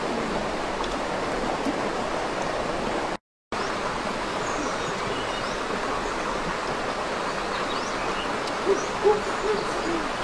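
Steady rush of a shallow rocky stream, broken by a brief moment of silence about three seconds in. A few short pitched calls sound near the end.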